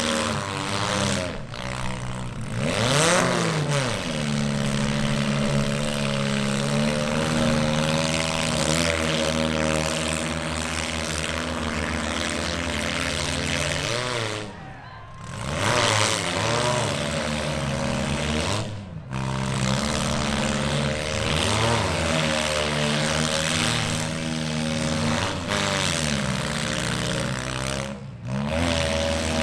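Several demolition derby cars' engines running together, with revs rising and falling every few seconds. The sound drops out briefly a few times.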